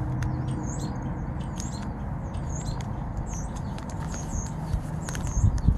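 Small birds chirping, many short high chirps one after another, over a steady low wind rumble on the microphone.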